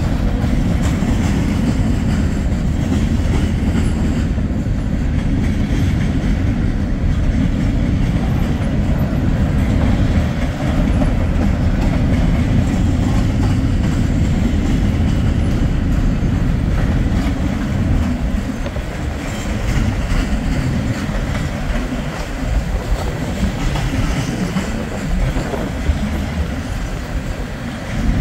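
Wheeling & Lake Erie freight train rolling past: a steady, heavy rumble of wheels on rail that eases off a little in the last third.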